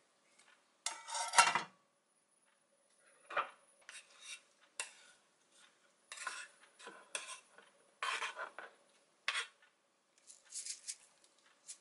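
Wooden kitchen utensils scraping and tapping against a plate and a wooden cutting board as food is laid on: a run of short scrapes and knocks, the loudest about a second in.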